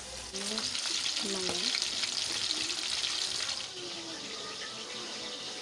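Vegetable fritters sizzling and crackling in hot oil in a frying pan, a steady hiss with scattered pops that drops away about two-thirds of the way through.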